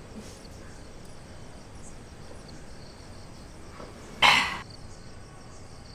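Crickets chirping faintly and steadily in the background. A short, loud slurp a little past four seconds in as tea is sipped from a cup.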